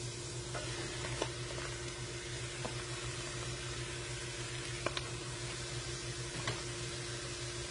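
Diced peppers, onion and celery sizzling in hot olive oil in a stainless pan as raw plant-based ground meat goes in, with a few sharp clicks over a steady low hum.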